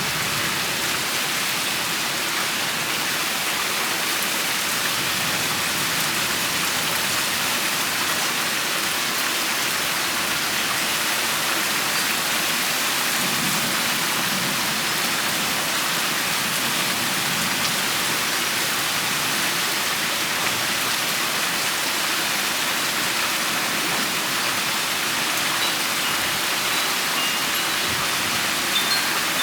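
Steady rain shower falling: a dense, even hiss of rain on surfaces, with a few sharper taps near the end.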